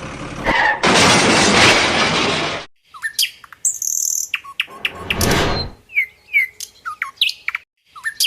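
A loud, even noise lasting about two seconds that starts and stops abruptly, followed by birds chirping in many short, quick calls.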